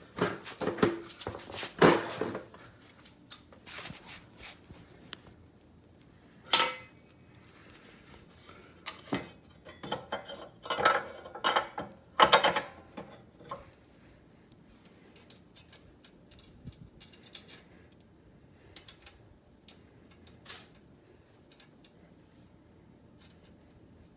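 Metal hand tools and exhaust parts clinking and clanking while an exhaust is fitted to a mini bike engine: irregular knocks and rattles, busiest near the start and again around the middle, then lighter scattered ticks.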